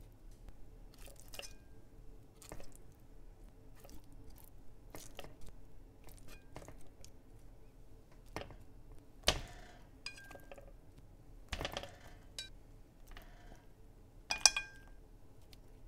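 Chopsticks and pieces of food knocking and clinking against a pot as blocks of deep-fried tofu and chikuwabu are set in one by one: scattered soft taps, with louder knocks about nine and eleven and a half seconds in and a sharp clink with a brief ring near the end.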